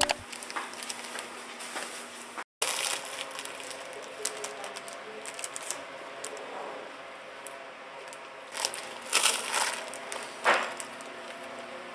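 Close-up chewing and crunching of crispy fried chicken, with small crackles throughout and a couple of louder crunchy bites near the end.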